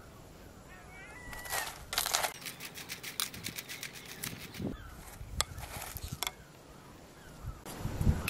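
Popcorn being stirred and tossed with a wooden spoon in a stainless steel pot, heard as rustling and a run of light clicks, with a low knock near the end. Short, wavering high animal calls sound in the background.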